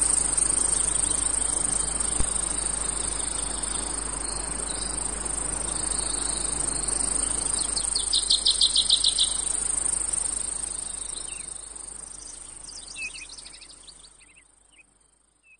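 Insect chorus: a steady high-pitched trill like crickets, with a quick run of pulsed chirps about eight seconds in. The whole recording fades out to silence near the end.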